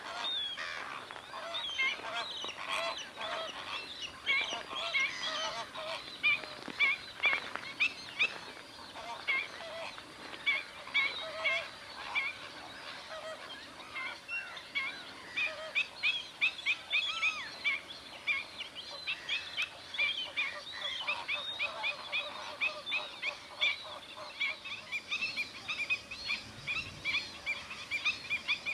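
A large flock of greater flamingos calling: many short, overlapping honks in a continuous chorus.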